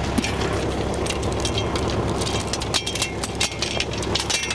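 Steel lifting chain clinking and rattling in short irregular bursts as it is wrapped around a disc harrow's frame, over the steady hum of a tractor engine idling.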